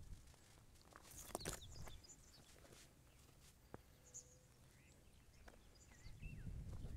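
Quiet outdoor ambience on a hiking trail: a few crunching footsteps about a second in, then short gliding bird chirps near the end over a low rumble.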